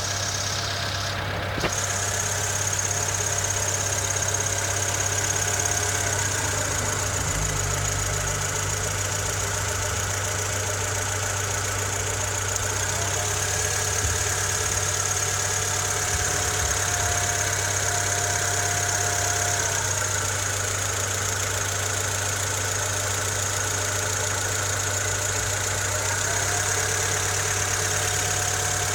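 Honda Civic EK3's D15Z6 1.5-litre four-cylinder engine idling steadily with a knock from inside the engine.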